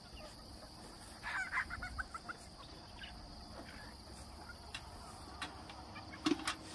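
Domestic chickens clucking and calling, with a burst of short calls about a second in. A few sharp clicks come through, the loudest near the end.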